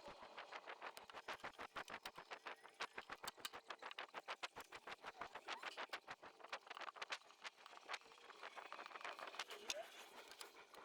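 Rubber spline being pressed by hand into the groove of an aluminium fly screen frame, with a rapid, irregular run of faint clicks and taps as it seats, several a second.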